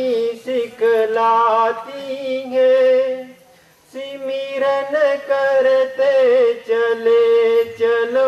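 A man singing a Hindi devotional bhajan in long held phrases, with a short pause about three and a half seconds in.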